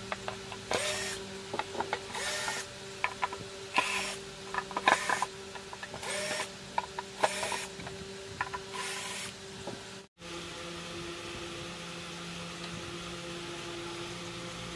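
Cordless screwdriver running in short bursts, about one a second, on the screws of an LED flood light's board, with small clicks between bursts. About ten seconds in the sound cuts off abruptly, leaving a steady hum.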